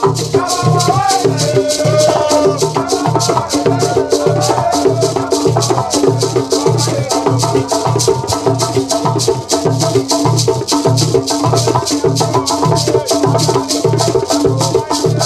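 Men singing together over a steady hand-played rhythm: quick, even strokes of a beaded gourd shaker, the knock of wooden box drums beaten by hand and a small drum struck with a stick.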